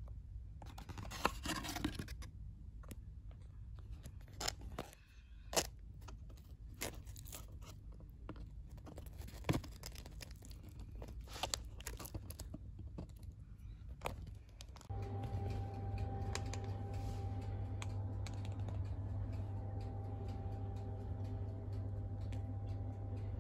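Paper and cardboard packaging being handled: rustling, tearing and scratching with scattered sharp clicks and taps. About fifteen seconds in this gives way to a steady electrical hum with a faint high tone over it.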